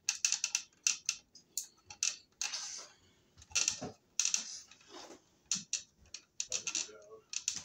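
Twist-on wire nut being screwed by hand onto two stripped copper wires, making short, irregular bursts of crackling clicks as it turns and grips the conductors.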